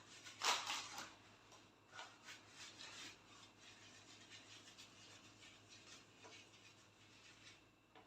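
Faint eating sounds: a few short scraping noises of food and utensils. The loudest comes about half a second in, then smaller ones follow around two to three seconds in.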